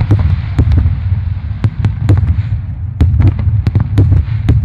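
Aerial fireworks shells bursting in quick succession: a rapid string of sharp bangs, several a second, over a continuous deep low rumble of booms.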